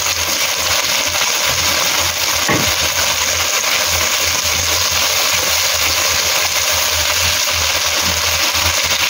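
Pork ribs, ginger and minced garlic sizzling in hot oil in a wok, a steady sizzle with a spatula stirring and scraping the pan. A low steady hum runs underneath.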